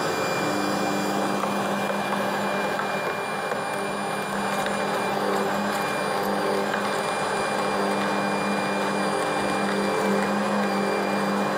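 Bosch MUM kitchen machine with its meat grinder attachment running steadily, a steady motor hum with a high whine, while a carrot is fed through to push the last of the meat out of the perforated disc.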